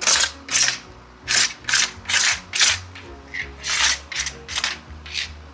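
Quick rubbing or scraping strokes by hand, about two a second, cleaning sticky butyl tape residue off the camper window frame.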